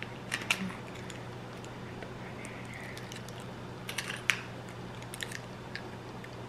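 Scattered small plastic clicks and snaps as a retainer and its plastic retainer case are handled. There are a couple of clicks near the start and a cluster about four seconds in, over a steady low hum.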